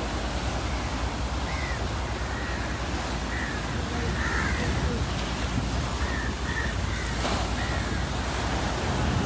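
Sea surf washing steadily, with a bird giving about eight short calls scattered through.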